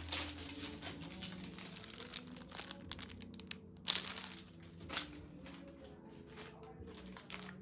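Plastic packaging crinkling and rustling as it is handled, in irregular bursts with a sharper crackle about four seconds in.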